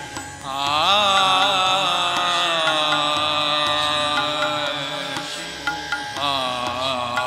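Indian devotional music: a long, wavering melodic line comes in about half a second in and fades by about five seconds, then enters again near the end, over a steady drone.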